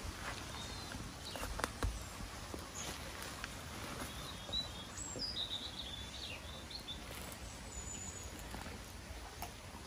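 Small stream running over a shallow riffle as a steady wash, with songbirds chirping in short high phrases, most clearly about five seconds in and again near eight seconds. A few faint clicks sound over it.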